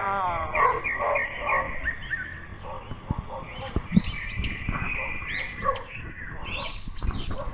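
A dog barking repeatedly in short, pitched calls, with a louder burst at the start.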